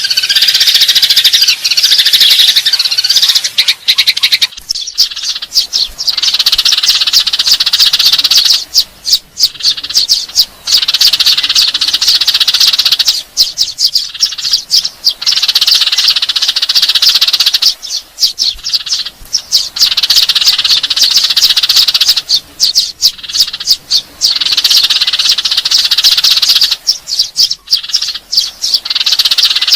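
Eurasian tree sparrows in a loud, dense run of rapid high chirps, the agitated chatter of sparrows fighting, broken by short pauses every few seconds. This is the sparrow fighting call used as a lure.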